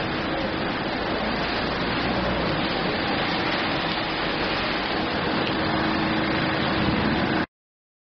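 Rain falling steadily into a puddle on pavement, an even hiss and patter that cuts off suddenly near the end.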